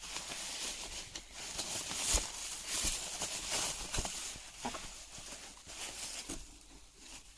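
Rustling and handling of a cardboard shipping box and its packing as it is searched, with scattered light clicks and knocks.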